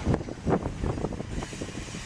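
Train passing, its wheels clattering over rail joints in quick, irregular knocks over a low rolling rumble.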